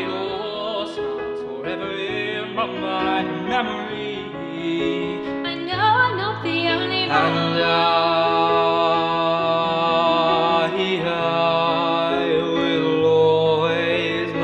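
A song playing: singing over a steady, sustained musical backing that grows fuller about seven seconds in.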